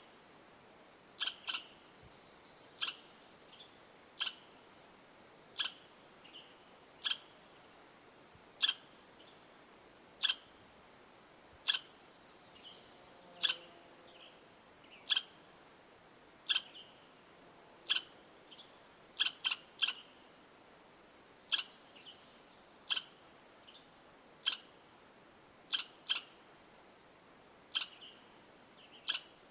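A small animal's sharp, high chip call, repeated about every one and a half seconds with a few quick doubles and fainter calls in between.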